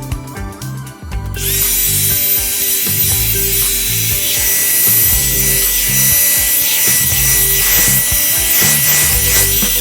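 Revlon One-Step hot-air dryer brush switched on about a second and a half in. Its motor gives a steady high whine over a loud rush of air, and it cuts off just before the end, with background music underneath.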